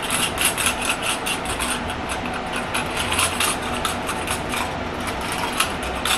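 A dense makeup brush buffing foundation into the skin of the face: a scratchy brushing that repeats several times a second with each stroke, over a low steady hum.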